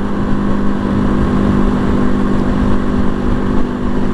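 Janus Phoenix 250's single-cylinder engine running at a steady cruising speed, heard from the rider's seat, with a low rumble of wind noise on the microphone.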